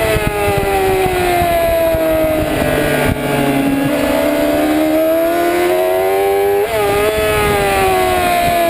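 Racing sport motorcycle engine heard from onboard: the note falls through a corner, then climbs steadily as the bike accelerates out. About two-thirds in it breaks sharply and falls again. Wind rushes over the microphone throughout.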